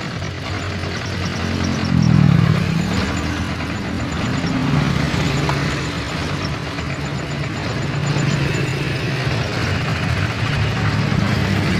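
Toyota Innova petrol engine running in the open engine bay. About two seconds in it revs up and drops back, then runs on unevenly. The engine runs rough ('gedek') and hesitates on throttle, which the mechanic puts down to a dirty throttle body and MAF sensor.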